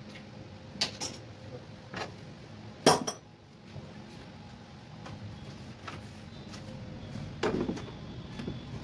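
Scattered metallic clinks and knocks as a split air conditioner's indoor unit is fitted to its wall mounting plate. The sharpest clink, which rings briefly, comes about three seconds in, and a duller, heavier knock comes near the end.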